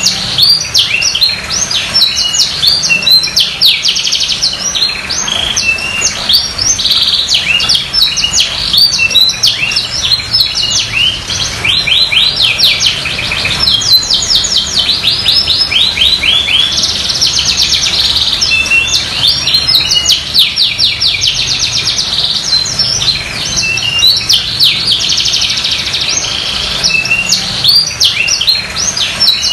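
Canary in full song, singing without a break: a long, fast warbling song of rapid trills and quick runs of repeated notes.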